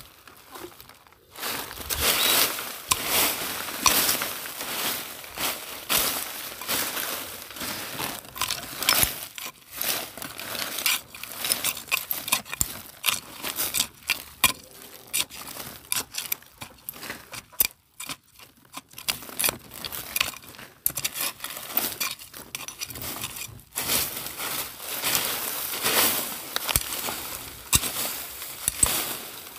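A parang (machete) scraping and raking through rubbish-strewn soil, with irregular crunches and rustles of dry leaves and plastic and clinks of broken glass shards.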